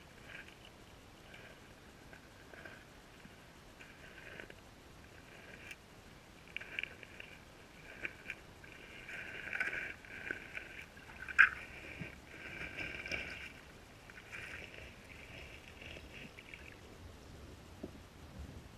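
Underwater sound of a river current heard through a GoPro's waterproof housing: a muffled, uneven rushing crackle that swells through the middle. One sharp knock comes about eleven seconds in.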